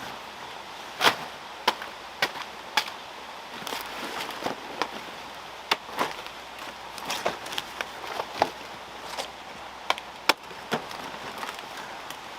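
A series of sharp knocks at irregular intervals, like chopping, over a steady hiss.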